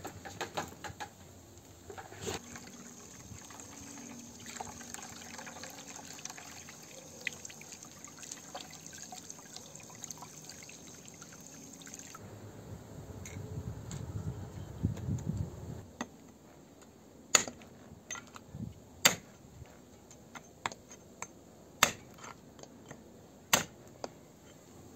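Water from a garden hose running into a plastic basin as a lamb head is rinsed. Then a hammer strikes the lamb head on a stone tile, in several sharp separate knocks a second or two apart, splitting the skull.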